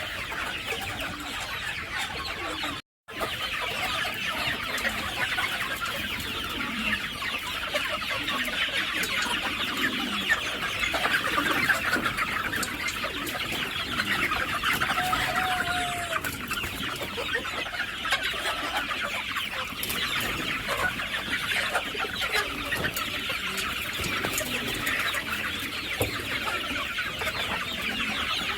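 A flock of chickens clucking and calling continuously, many birds overlapping. The sound cuts out for a moment about three seconds in.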